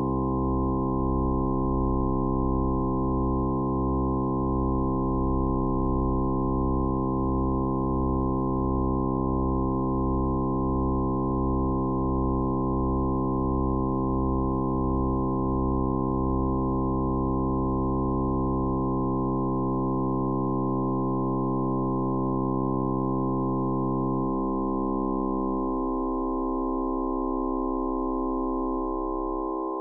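A dense chord of steady synthesised sine tones, each pitch detuned about half a semitone so that they clash, the lowest ones beating in a slow pulse of about two a second. In the second half the pitches are taken away one by one from the bottom, the low beating fading first, so the chord thins upward to its higher tones.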